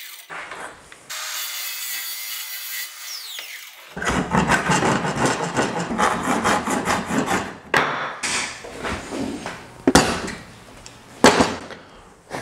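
A cordless circular saw cuts into a wooden board for the first few seconds. Then a handsaw finishes the notch with quick back-and-forth strokes, with two sharp knocks near the end.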